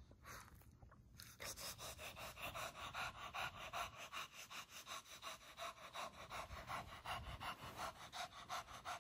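Shih Tzu panting in a quick, even rhythm that starts about a second in, worked up into a frenzy.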